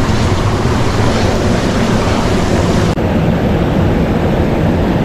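Loud, steady rush of a fast mountain stream's white water tumbling over rocks close by.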